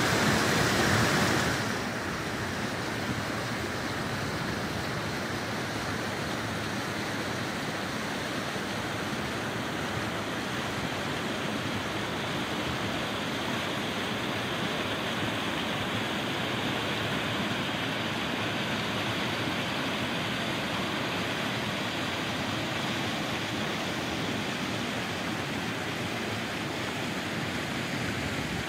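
Mountain creek rushing over boulders and a small cascade: a steady rush of water, louder for the first second or two.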